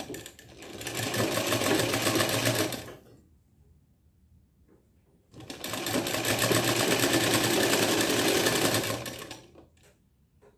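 Sewing machine stitching a turned-under fabric edge, running in two bursts: a short one of about two and a half seconds, then a pause, then a longer run of about four seconds. A few light clicks follow near the end.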